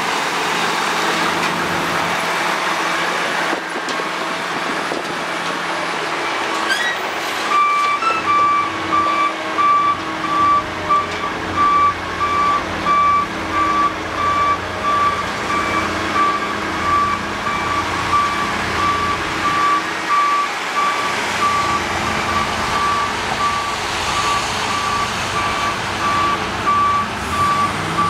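Volvo tipper semi-trailer truck's diesel engine running as it manoeuvres, with its reversing alarm starting about a quarter of the way in and beeping steadily as the truck backs up to be loaded.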